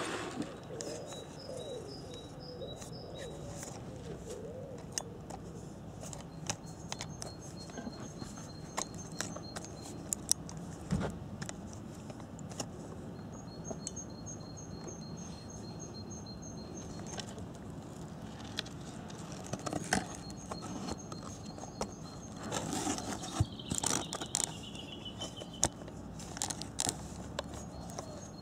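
Small scattered clicks and crackles from a radio-controlled truck rolling slowly over twigs and leaf litter, with faint high-pitched pulsed chirping in runs of a few seconds.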